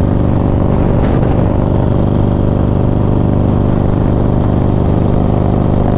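A 2020 Harley-Davidson Road Glide's Screamin' Eagle 128 V-twin, through a 2-into-1 exhaust, running at highway speed as the throttle is rolled on to just past 3,000 rpm, where it sputters and loses a little power. The rider puts this down to the newly built engine being in dire need of a tune.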